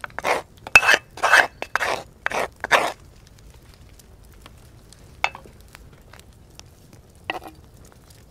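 A spoon scraping sauce and diced pancetta out of a pan in about seven short scrapes in quick succession, then a couple of light knocks.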